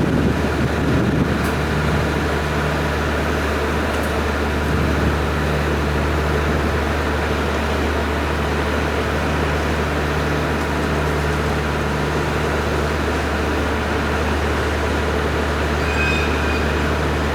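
Diesel locomotive of a freight train running with a steady low engine drone.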